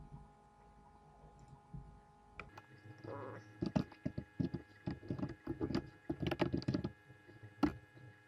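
Typing on a computer keyboard: a quick, uneven run of keystroke clicks that starts about two and a half seconds in, over a faint steady hum.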